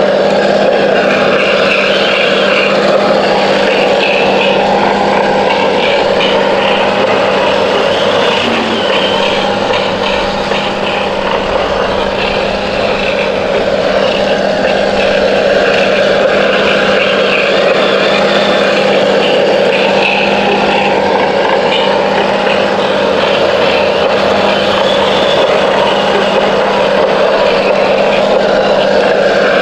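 Remote-control toy vehicle running: a loud, steady motor drone and whine that carries on without a break, with a slight dip about ten seconds in.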